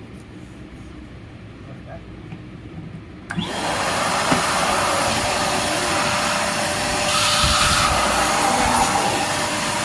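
RS.3200 vacuum cleaner switched on about a third of the way in: its motor starts abruptly and then runs steadily and loudly, with a brief rise in hiss a little past the middle.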